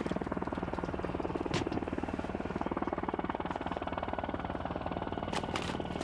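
Small boat engine running steadily at idle, with a fast, even putter.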